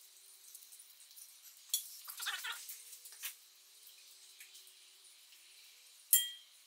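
Scattered light metallic clinks and rattles of hand tools and engine parts, with a brief squeak about two seconds in. A sharp metal clink near the end rings briefly.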